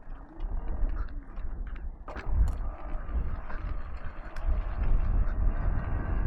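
Wind buffeting the microphone and tyre noise from a moving electric dirt bike, with a short rising whine near the start. It gets louder about two seconds in as the bike picks up speed.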